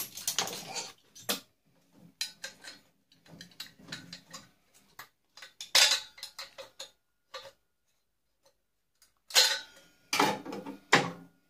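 Irregular metallic clicks, clinks and rattles of a microwave magnetron being handled and worked apart by hand, with louder clatters about a second in, around the middle and twice near the end, and a quiet pause shortly before the end.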